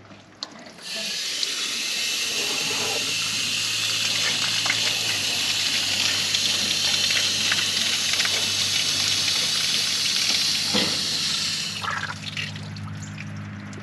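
Water rushing steadily as fresh water is run through a 1968 Triumph GT6's cooling system to flush out sludge. The hiss starts about a second in and drops away near the end, leaving a low steady hum underneath.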